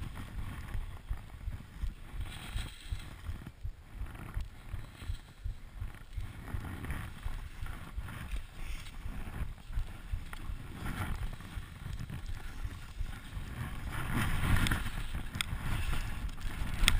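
Wind buffeting a helmet-mounted camera's microphone during a ski descent, with the hiss and scrape of skis through snow; it gets louder near the end.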